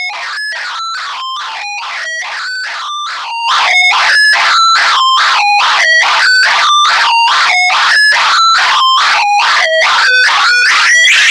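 Shrill, rasping squeaks repeat in an even run of a little over two a second, each at a different pitch. The sound jumps sharply louder about three and a half seconds in and stays very loud.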